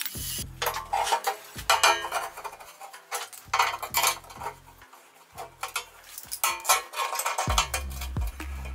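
Steel strips and bar clamps clanking against a sheet-steel box and steel workbench as they are set in place: a series of sharp metallic knocks and rattles, irregular, over background music.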